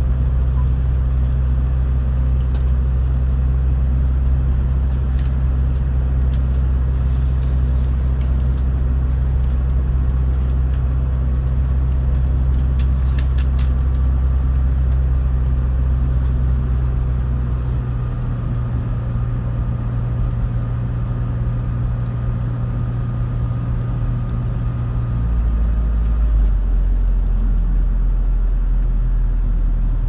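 Toyota HiAce van driving, heard from inside the cabin: a steady low engine and road drone. The drone changes about two-thirds of the way through and again near the end, as the van's speed or gear changes.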